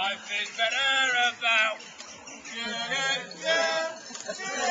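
A man's voice chanting verse in a sing-song delivery, broken by short pauses between phrases.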